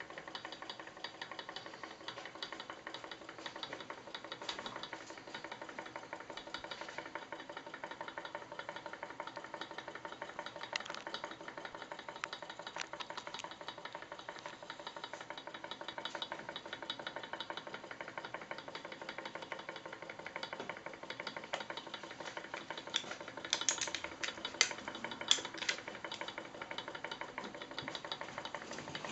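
Model hot air engine running steadily: a fast, even mechanical ticking and knocking from its moving parts. A few louder sharp clicks come near the end.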